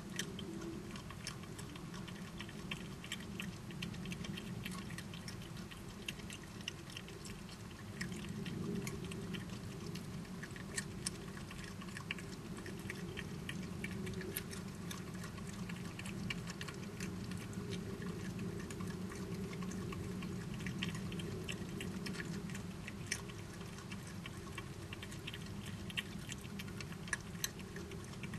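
Badgers chewing and crunching food: many small irregular clicks, sometimes in quick clusters, over a steady low hum.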